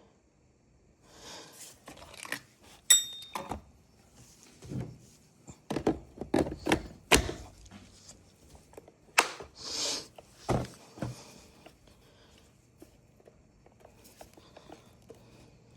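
Irregular clicks, knocks and thunks of tools and small parts being handled during work on a chainsaw, with a short metallic ring about three seconds in.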